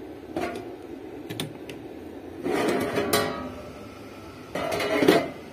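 Sheet-metal top cover of a home-built power-amplifier chassis being taken off: a few light metal clicks, then a louder ringing scrape and clank about two and a half seconds in, and another clank near the end.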